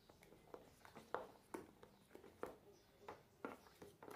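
Spoon stirring thick cake batter in a plastic tub, knocking and scraping against the sides in faint, irregular strokes about twice a second.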